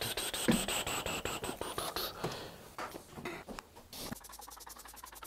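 Scattered clicks, knocks and scraping as objects are handled and moved around to clear space, with a quick run of faint ticks near the end.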